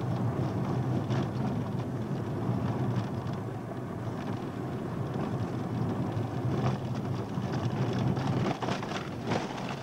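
A car's engine and tyre noise heard from inside the cabin while driving a gravel road: a steady low hum, with knocks and rattles in the last few seconds as the car crosses rougher ground.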